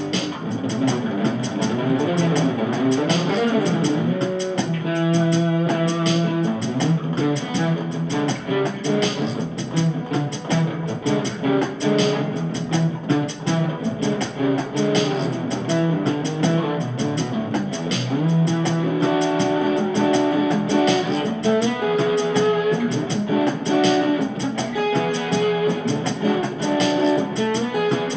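Music led by guitar, playing throughout.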